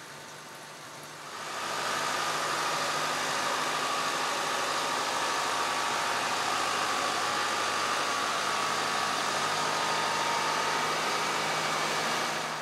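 Tractor-drawn Keenan mixer wagon running as it feeds out mixed ration from its side discharge chute: a loud, steady machine drone with a held whine. It starts sharply about a second and a half in, after a quieter engine hum, and stops abruptly at the end.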